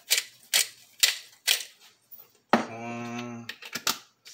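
Spice shaker shaken over a pot of beef, giving sharp ticks about twice a second for the first second and a half. This is followed by a man humming one steady low note for about a second, and a few light clicks.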